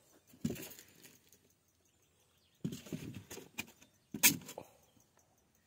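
Close handling noise: three short bursts of rustling and knocking, the last one, about four seconds in, the loudest and sharpest.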